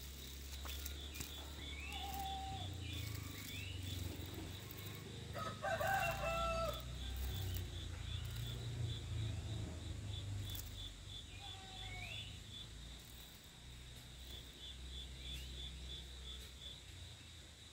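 Outdoor ambience: a rooster crows once, about five and a half seconds in, the loudest sound here. Under it a high insect trill pulses about three times a second throughout, short bird calls repeat every few seconds, and a low rumble runs beneath.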